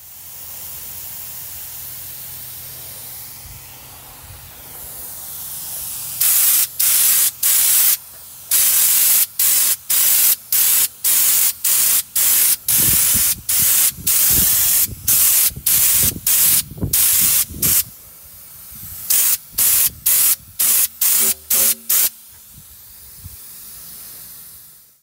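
Compressed-air spray gun applying Raptor bed liner coating to steel. A softer steady hiss runs first; then, from about six seconds in, the gun fires in a quick run of short, loud spray bursts, one or two a second, that cut sharply on and off until near the end.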